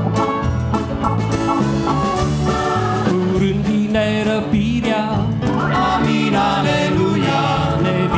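Live church band playing an instrumental passage between sung verses: bass guitar, acoustic guitar, drum kit and keyboard, with a trumpet and a tuba-type brass horn.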